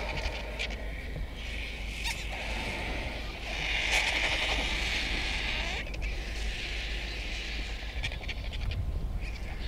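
Vultures squabbling with harsh hissing and rasping calls, louder for a couple of seconds around the middle, over a steady low rumble.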